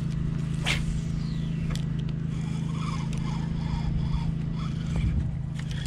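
A steady low motor hum, like an engine running at a constant speed nearby. About a second in comes the quick swish of a spinning rod being cast, followed by a faint falling hiss.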